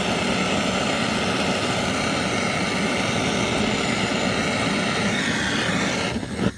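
BernzOMatic trigger-start torch flame hissing steadily while heating a radiator fitting for soldering. It falters and cuts out about six and a half seconds in as the trigger is let go.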